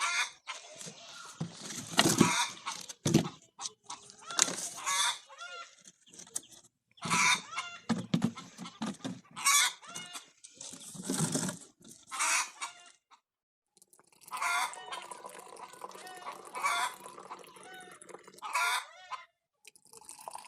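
Domestic hens cackling in a string of loud, separate bursts. This is the cackle hens give around laying, and the owner says they are laying now.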